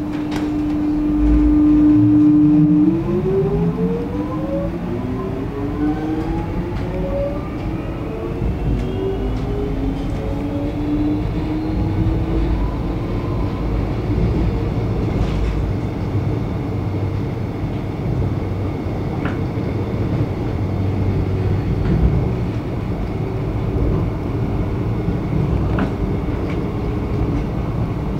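Alstom X'Trapolis electric train pulling away from a station, heard from inside the front carriage. A steady hum for the first three seconds gives way to a whine that climbs in pitch for about ten seconds as the train gathers speed. It then settles into steady running noise with wheel-on-rail rumble.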